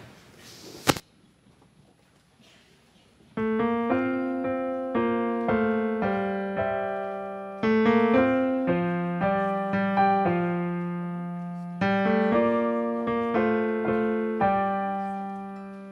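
A short burst of noise, then about two seconds of near silence, then a piano starts playing the introduction to a hymn: chords struck one after another, each fading before the next.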